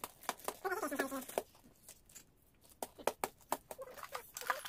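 Gift wrapping paper crinkling and crackling in irregular little bursts as a baby grabs and pulls at a wrapped present, with a short vocal sound about a second in.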